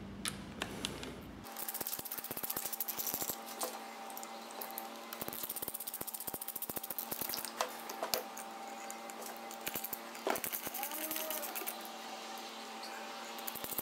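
Ratchet wrench clicking in quick runs, several times over, as bolts are wound in.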